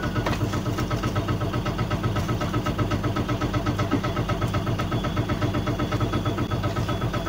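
A motor or engine running steadily, a low hum with a fast, even pulse of several beats a second.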